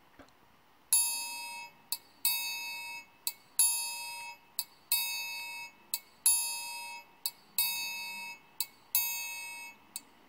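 Triangle struck in a slow steady beat, about seven ringing strokes roughly 1.3 s apart, each ring fading. A short, sharp tap falls between the strokes.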